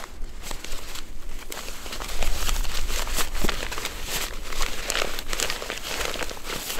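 Crinkling and rustling of a fabric stuff sack being folded and rolled up by hand, an irregular run of short crackles that grows busier about two seconds in.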